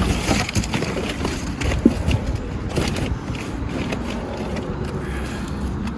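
Irregular knocks, clicks and scrapes of metal suspension parts and tools being handled, over a steady low rumble.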